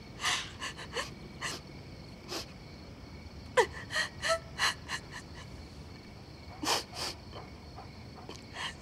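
A woman sobbing: a string of short, gasping breaths in uneven bursts, with a falling whimper about three and a half seconds in.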